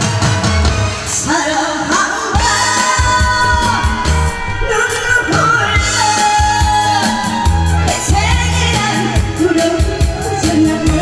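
A voice singing a song with long held, wavering notes over backing music with a steady drum and bass beat.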